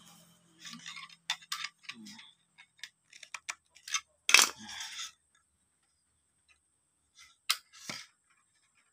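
Irregular sharp metallic clicks and short scrapes from a screwdriver working on the breaker-point contact strips and wing-nut terminals of a homemade fish stunner. The loudest click comes a little over four seconds in, with two more near the end.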